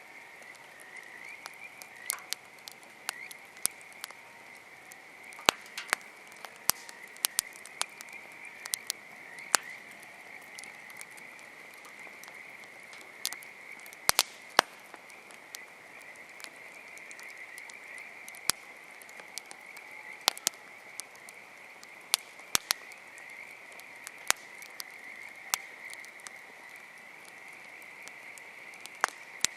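Wood campfire crackling with sharp, irregular pops, over a steady chorus of frogs trilling.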